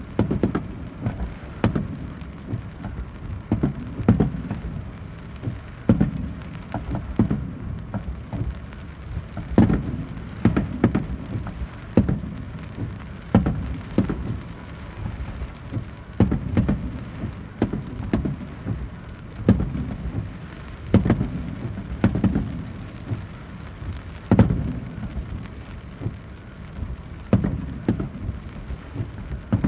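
Aerial firework shells bursting one after another in a show, a boom every second or two, each trailing off briefly.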